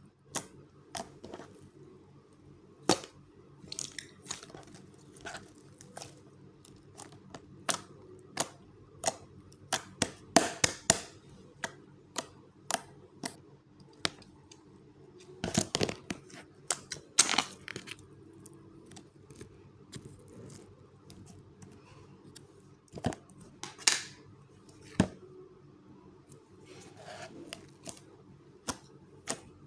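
Slime being squeezed and poked by hand, giving irregular sharp clicks and pops, with a few longer crackling stretches partway through.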